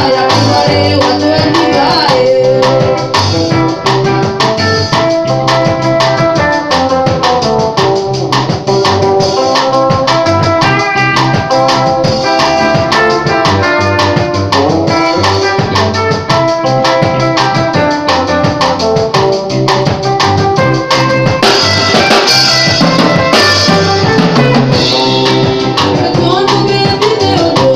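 Live mugithi band playing: electric guitars over a drum kit keeping a steady beat, with a woman singing into a microphone at times.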